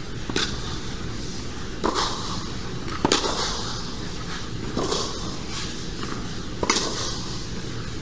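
Tennis rally: about five ball strikes off racquet strings, one every one and a half to two seconds, ringing out in a large air-dome hall over a steady low hum. The loudest strikes come from the near player's Wilson Ultra 100 v4.0, strung with Luxilon ALU Power.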